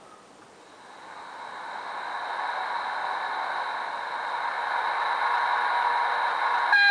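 Model DB Class 151 electric locomotive's running sound, a whir with faint steady tones that swells over several seconds. Near the end a sudden louder sound of several steady tones cuts in.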